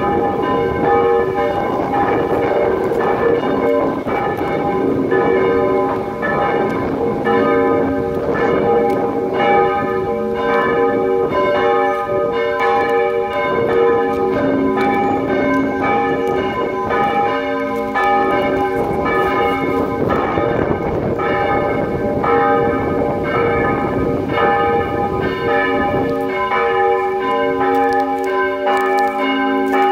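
Church bells, said to be steel, ringing together in a continuous peal, their strokes overlapping in an uneven, steady stream.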